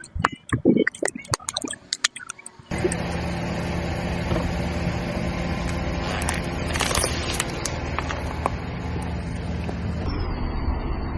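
A few sharp clicks and crackles, then an abrupt cut to a car engine running steadily, with a brief louder crackle in the middle.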